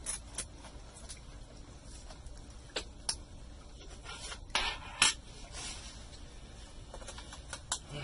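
Scattered light clicks and a brief scrape of a small precision screwdriver and screws against the plastic underside of an HP ProBook 4420s laptop as its bottom-panel screws are taken out; the sharpest click comes about five seconds in.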